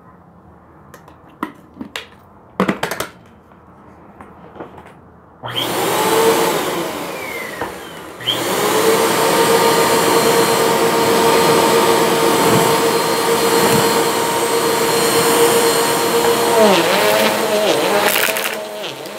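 Bissell upright vacuum cleaner switched on about five seconds in, after a few light clicks, then running steadily with a whine, getting louder about eight seconds in. Near the end its note dips and wavers while it works over a pile of fluff on the rug.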